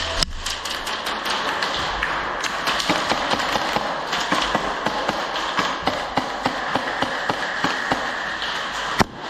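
Airsoft guns firing and BBs striking: scattered sharp clicks and taps over a steady hiss, with a few loud cracks in quick succession near the end.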